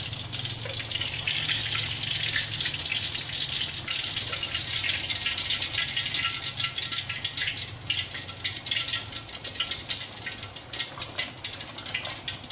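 Dark soy-sauce gravy sizzling and bubbling in a wok around freshly fried Spanish mackerel pieces, a dense crackle of fine pops that is strongest in the first half and eases toward the end.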